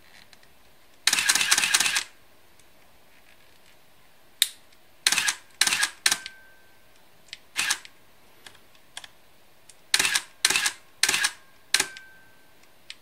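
Nikon F4 film SLR firing its shutter with the built-in motor advancing the film: a harsh run about a second long about a second in, then a string of short mechanical clacks, some in quick pairs. The camera is working again after a day in a freezer at −20 °C, on batteries that are still cold.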